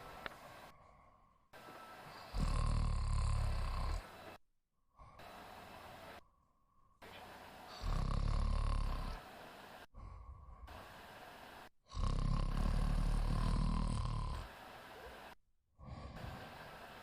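A woman snoring in deep sleep: three loud, low snores, about five seconds apart.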